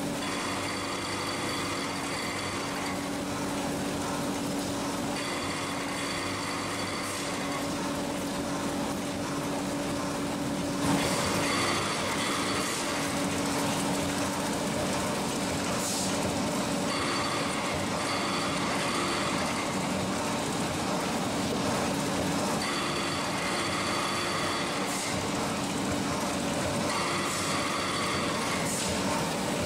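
HPR CM5000 VD vertical form-fill-seal packing machine with auger filler running, packing 100 g bags of Turkish coffee. A steady machine hum, with a higher whine that comes and goes every few seconds and a few short hisses.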